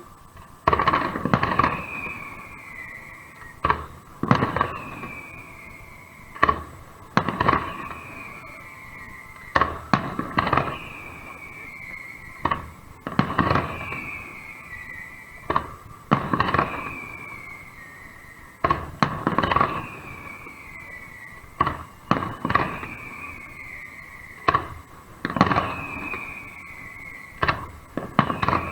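Fireworks shells bursting in a steady sequence: loud bangs in quick groups about every three seconds, each group followed by a falling whistle-like tone and a trailing echo.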